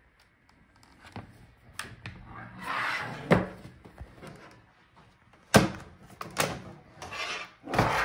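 Sharp plastic clicks and knocks with scraping and rustling as a laptop's plastic bottom case is pried loose with a plastic pry tool, its clips releasing, and lifted away from the palm rest. Several separate clicks, the loudest about three seconds and five and a half seconds in.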